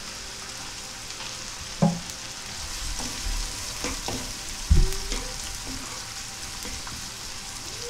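Chopped onions sizzling in hot oil in a nonstick kadai, with a steady frying hiss. A wooden spatula stirs them and knocks against the pan, the loudest knock about five seconds in.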